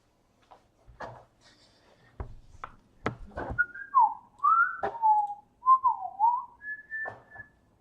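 A person whistling a short wavering tune that ends on a held high note. Before it come light clicks and taps of trading cards being handled and sorted.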